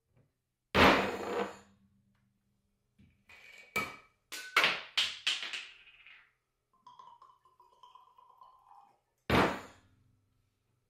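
A glass bourbon bottle is knocked down onto a bar top, followed by a quick run of clicks and clinks as it is handled. Bourbon trickles into a Glencairn glass for about two seconds, and then the bottle is set down on the bar with another sharp knock.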